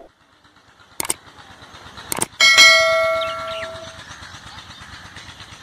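Subscribe-button animation sound effects: a mouse click about a second in, two more clicks around two seconds in, then a bright notification-bell ding that rings out and fades over about a second and a half, over faint outdoor background noise.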